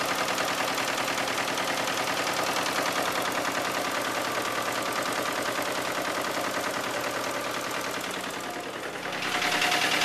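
2000 Isuzu Trooper 3.5-litre V6 engine running with a loud, rapid, evenly repeating knock, heard close up at the front drive belt and pulleys. The knock started at the same time as an oil leak from the upper front of the engine, and its cause is unknown to the owner.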